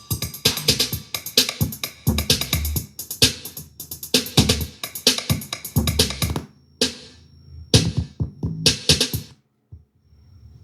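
Electronic music with a drum-machine beat and heavy bass, played through a JBL Xtreme portable Bluetooth speaker; the music stops about a second before the end, leaving a faint low hum.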